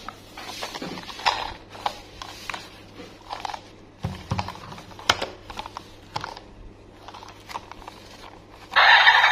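Gloved hands handling a plastic battery-powered light-up toy train: irregular clicks, knocks and rustles of plastic and knit glove, with a few low thumps about four seconds in. Near the end the toy is switched on and loud electronic music starts suddenly.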